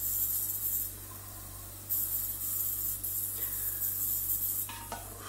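Ultrasonic cleaner running: a steady high-pitched hiss from the agitated cleaning bath. It cuts out for about a second shortly after the start, comes back, and stops again near the end.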